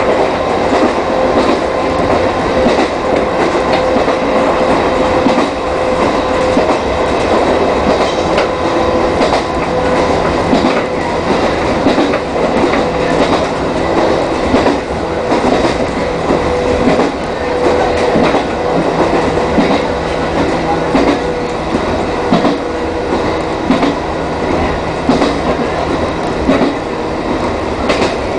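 Chichibu Railway 1000 series electric train (ex-JNR 101 series) running along the line, its wheels clacking over rail joints, with a steady whine.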